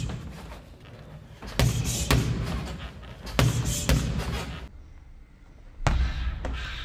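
Boxing gloves smacking into focus mitts: three pairs of sharp punches, each pair about half a second apart, each smack echoing briefly in a large room.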